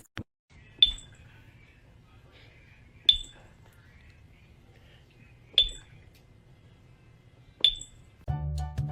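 Four sharp, ringing clinks like something striking glass or a small bell, spaced about two and a half seconds apart over a faint low hum. Music starts near the end.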